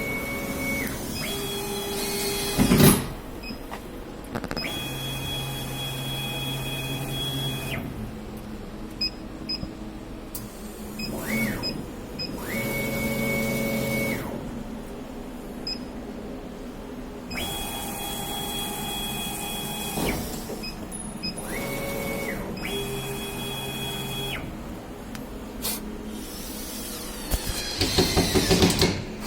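Stepper motors of a two-head CO2 laser cutting machine driving the gantry and heads in a series of moves, each a whine that rises in pitch, holds steady, then falls as the axis stops. A short burst of noise comes about three seconds in, and a louder rough noise near the end.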